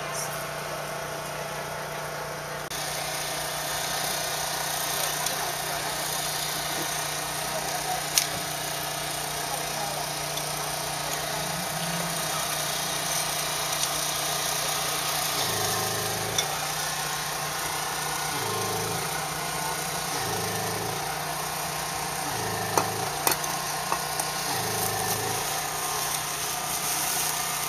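A steady engine hum, like a vehicle idling, with a low throb that comes and goes every two seconds or so in the second half and a few sharp clicks, one about eight seconds in and a couple near the end.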